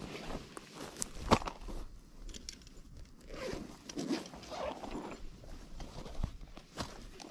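Gear being unpacked from a backpack: a zipper pulled, with rustling and handling noises and one sharp click about a second in.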